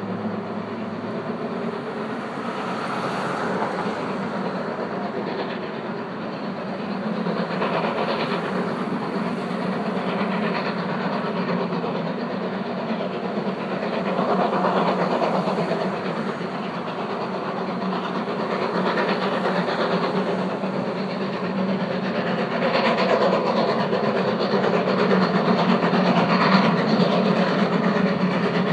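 Steam locomotive working up a grade. Its sound swells and eases every few seconds and grows louder toward the end as it approaches.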